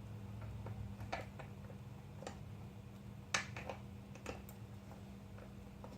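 Scattered light clicks and taps of small metal engine parts and bolts being handled, the loudest about three and a half seconds in, over a steady low hum.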